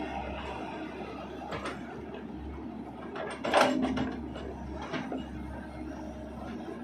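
XCMG XE75DA excavator running steadily as it digs a ditch in wet soil, with a few knocks and clanks from the bucket and arm. The loudest knock comes about halfway through.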